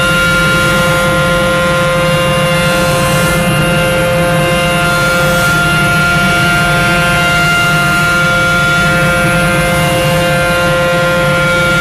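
Small electric motors of a scale-model car wash running with a steady, unchanging whine.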